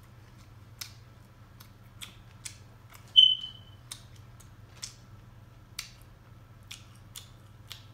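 Close-up eating sounds: irregular wet clicks and smacks from chewing and handling seafood-boil food. About three seconds in there is one short, loud, high ring that fades quickly.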